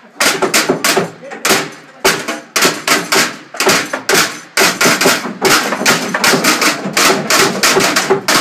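A rapid, uneven run of sharp knocks and thuds, settling into a steady beat near the end, with voices under it.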